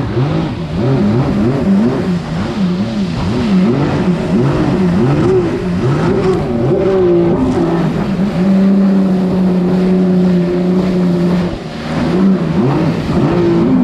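Four-stroke three-cylinder engine of a Yamaha Superjet stand-up jet ski running under way, its pitch rising and falling again and again with the throttle. About halfway through, the pitch holds steady at high revs for a few seconds, then it starts rising and falling again near the end.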